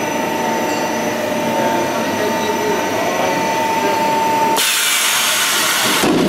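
Storage-shelf beam roll forming machine running steadily, with a constant hum. About four and a half seconds in, the hum stops and a loud hiss lasts about a second and a half.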